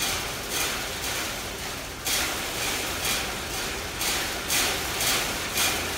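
A chimpanzee striking the steel bars of its cage: about five sharp metallic blows, spaced out at first and then about two a second near the end. The rhythmic banging is a stereotyped behaviour of a captive animal, a sign of zoochosis.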